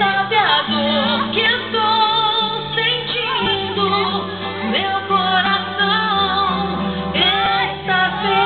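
Music: a woman singing a slow song, holding long notes with vibrato over sustained accompaniment chords and bass notes that change every second or two.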